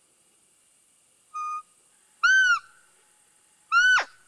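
Roe deer call blown in short squeaky peeps imitating a roe doe: a faint flat peep, then two loud peeps that rise and fall in pitch, about a second and a half apart.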